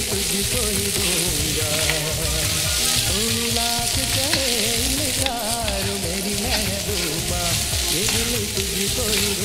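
Pieces of spiced chicken breast sizzling steadily as they fry in oil in a wok, with a plastic spatula scraping and turning them. Background music with a wavering melody runs underneath.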